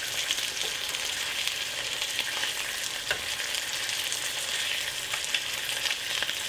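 Beef sizzling in olive oil in a hot wok, a steady frying hiss. Its juices have cooked down, so the meat is browning rather than simmering. A few faint ticks come through.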